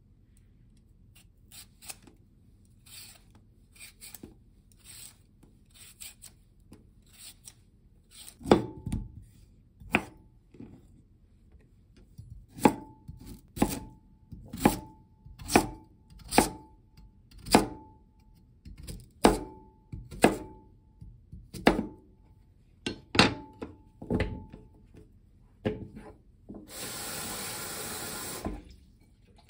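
A sweet potato being peeled with a vegetable peeler in light scraping strokes, then cut with a santoku knife on a wooden cutting board: over a dozen sharp chops about one a second, some with a brief metallic ring. Near the end a tap runs for about two seconds.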